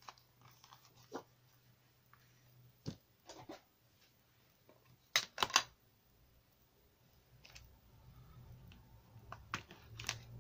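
Paper and a clear cellophane bag being handled on a tabletop: scattered light rustles and taps, with a sharper double crackle about five seconds in. A faint steady low hum runs underneath.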